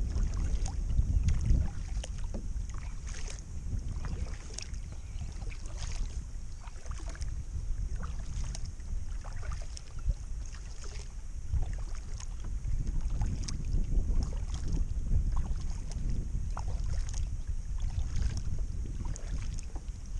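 Kayak paddle strokes, the blades dipping and splashing in the water at a regular pace every second or two, over a low rumble of wind on the microphone.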